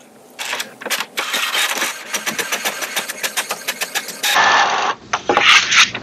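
HP Smart Tank 720 inkjet printer printing a page: a fast, even run of clicks, about eight a second, from the printhead carriage and paper feed, turning to a denser whirring about four seconds in. Paper rustles near the end.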